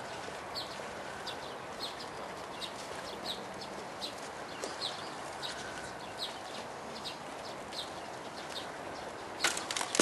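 A small bird chirping over and over, one short high call every half second or so, over the steady murmur of an outdoor crowd. Hand clapping starts near the end.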